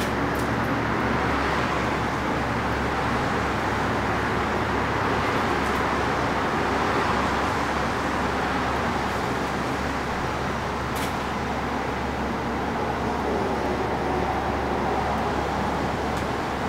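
Steady rushing noise with a low hum beneath it, unchanging throughout, like a running blower or air handler; a faint click about eleven seconds in.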